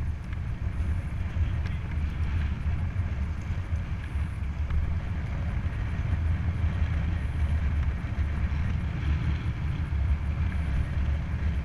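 Wind buffeting the microphone of a helmet-mounted action camera on a moving road bike: a steady low rumble that rises and falls.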